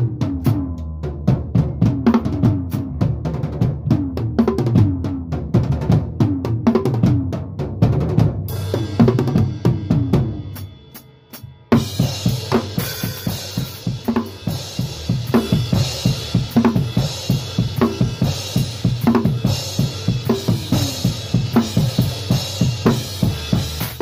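A rock band jamming: a drum kit with bass drum and snare plays a driving beat under electric guitar. About eight seconds in the drums break off and the guitar rings out and fades. About twelve seconds in the whole band crashes back in, now with cymbals added over the beat.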